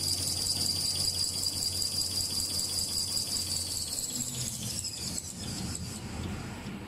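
Deco-embossing toilet tissue and paper towel machine running with a steady high-pitched whine over a low hum. About four seconds in, the whine falls in pitch and the hum fades as the machine slows down.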